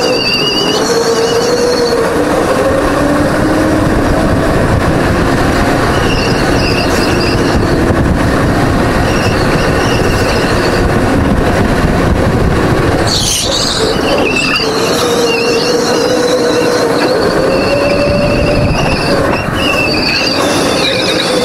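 Go-kart engine running hard, its pitch rising and falling as the kart accelerates and brakes through the corners, with intermittent high-pitched tyre squeal while cornering.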